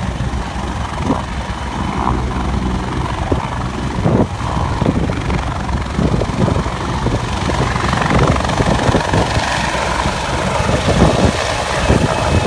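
Bell 430 twin-turbine helicopter running at flight power on its pad and lifting off: a steady loud rotor and turbine roar with a gusty, chopping rumble that grows louder over the second half as it rises.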